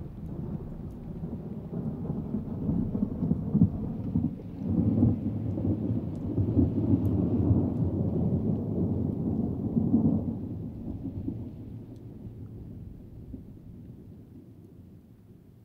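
Low rolling rumble of thunder that swells over several seconds and then fades away steadily.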